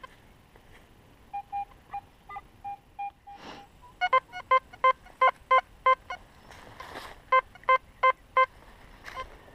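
Metal detector giving repeated target beeps as the coil is swept over something in the ground: a few scattered higher beeps, then a run of about eight regular beeps, a pause, and four more. Brief rustling is heard twice.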